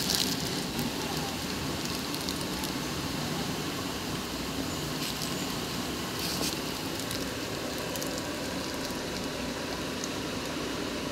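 Steady background hiss, with a few faint clicks scattered through it.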